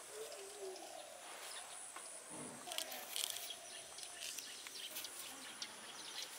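Insects trilling steadily in a garden, a continuous high-pitched buzz, with scattered light clicks and snips of small knives cutting leafy greens against steel plates, busiest about three seconds in.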